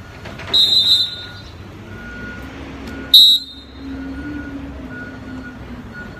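Fox 40 whistle blown twice: a blast of about half a second near the start and a shorter, louder blast about three seconds in, the whistle signal for sit.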